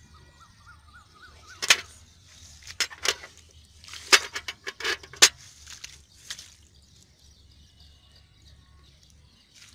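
A snakehead fish and a nylon mesh net being handled by hand: a string of sharp slaps and crackles between about one and a half and six and a half seconds in. A bird trills briefly near the start over a low steady rumble.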